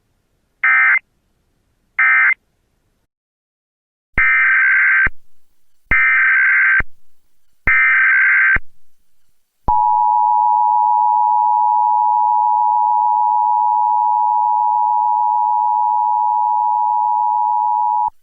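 Emergency Alert System tones. First come two short, harsh, buzzing SAME data bursts ending the previous message. Then three longer bursts of about a second each, a second apart, form the header of the next alert. Last is the steady two-tone attention signal, held for about eight seconds before it cuts off.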